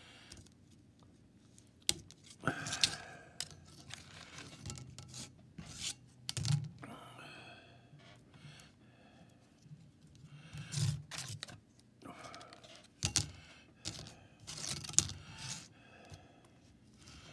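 A thin steel pick scraping and picking at the edges of the water holes in a tractor head gasket, in irregular, scratchy strokes with a few sharp clicks. It is digging out bulged gasket filler that would otherwise come loose into the water jacket.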